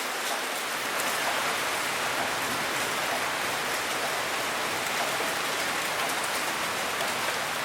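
Steady rain falling: an even hiss with a faint patter of individual drops.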